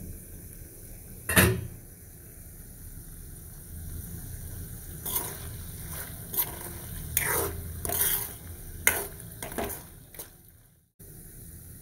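A spoon clanking and scraping against an iron karahi as mutton is stirred in its simmering juices: one sharp clank about a second in, then a run of knocks and scrapes from about five seconds in, over a low steady hiss.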